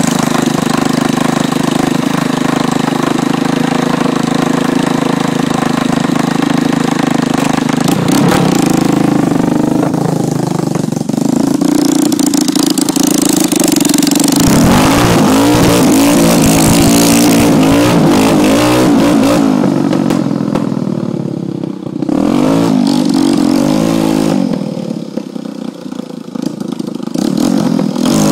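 Yamaha Warrior 350 quad's single-cylinder four-stroke engine idling steadily, then revved up and down repeatedly under riding, with a few quieter stretches between the revs.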